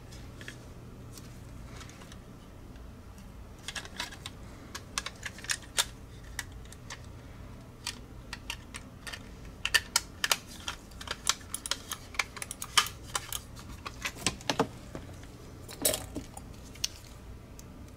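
Irregular sharp plastic clicks and taps, some in quick runs, starting a few seconds in, as the top shell and base of a Logitech G Pro X Superlight mouse are handled and pressed together during reassembly.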